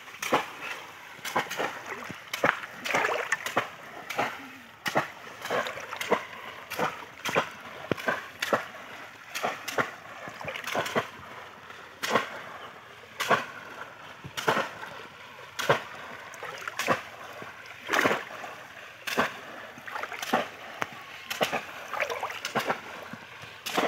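Bamboo cone fish traps being plunged again and again into shallow water by two people wading, a sharp splash about twice a second in an uneven, overlapping rhythm.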